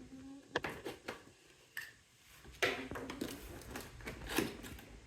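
Packaging handled during an unboxing: scattered clicks and knocks, then rustling from about two and a half seconds in.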